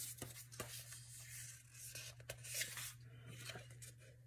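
Faint rustling and sliding of sheets of craft paper being shuffled and lifted by hand, with a few light taps.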